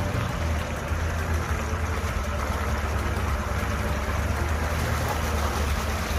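Toyota Land Cruiser safari vehicle driving: a steady low engine drone with road rumble and hiss.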